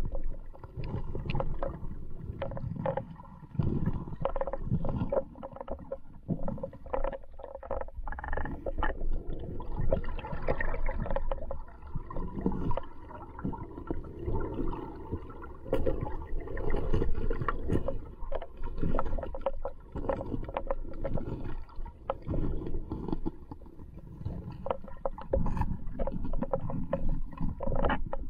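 River water moving past a submerged action camera, heard underwater: a muffled low rush and gurgle with frequent small knocks and clicks.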